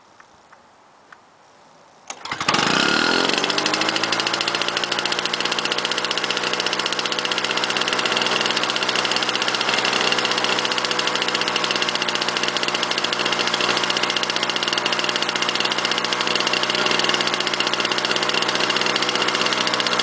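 Cold start of a 1998 Lawnboy 10323 mower's 6.5 hp Duraforce two-stroke engine. It fires about two seconds in, revs up quickly and settles into a steady, fast-running buzz, with the idle speed set too high.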